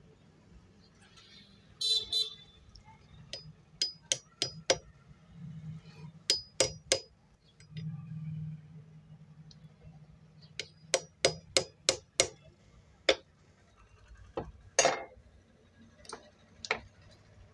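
Small hammer tapping metal parts inside a sewing machine's head as a part is knocked into place. The taps come in short runs of sharp metallic clinks, each with a brief ring, with a heavier knock near the end.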